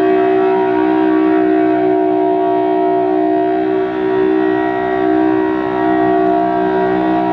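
Federal Signal Thunderbolt 1000T civil-defense siren sounding its steady full-alert tone: a loud sustained chord that holds its pitch, with the level dipping slightly now and then. The blower is running the right way, but the chopper sounds rough, worse than ever to its owner.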